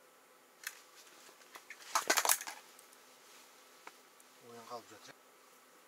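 Handling noise as the ice-fishing rod is reached for and taken in hand: a few sharp clicks, then a dense cluster of clicks and rustling about two seconds in. A short murmured voice sounds near the end.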